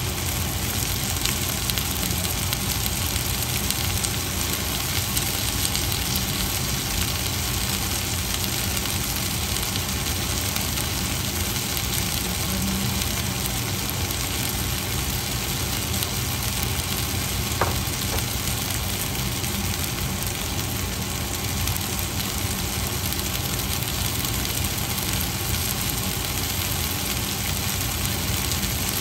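Food frying in a pan: a steady sizzle over a low, even hum, with one short click about two-thirds of the way through.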